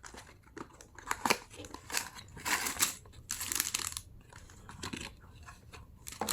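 Toy packaging being opened by hand: irregular crinkling and tearing rustles with a few sharp clicks, busiest around the middle.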